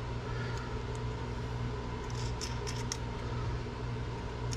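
Steady hum of a fan running, with a few light clicks and taps of small rig parts being handled about two to three seconds in.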